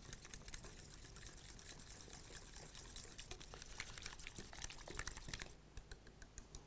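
Spoon stirring warm white sauce in a small stainless steel saucepan: a faint wet stirring sound dotted with light clicks of the spoon on the pan, thinning to a few separate taps near the end.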